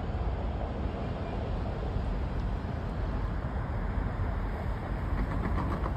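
Steady low rumble with wind buffeting the microphone.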